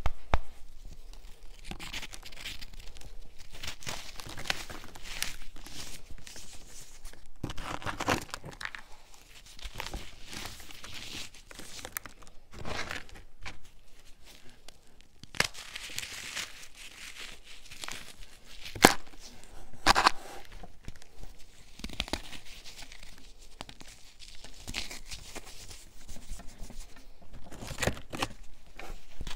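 Hands crushing and crumbling packed balls of baking soda, with an irregular run of dry crunches. A few sharper cracks stand out, the loudest about two-thirds of the way through.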